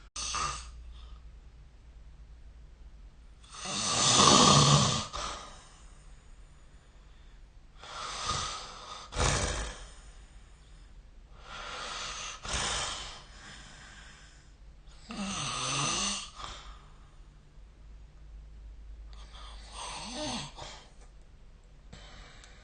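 A sleeping person snoring: a snoring breath every three to four seconds, the loudest about four seconds in.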